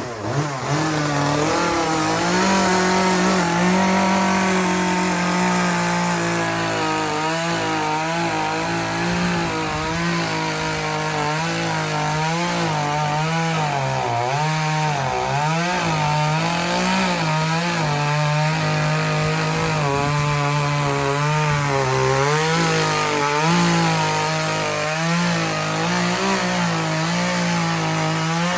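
Chainsaw running at high revs while carving a pine log, its engine pitch wavering up and down as it bites into the wood and eases off.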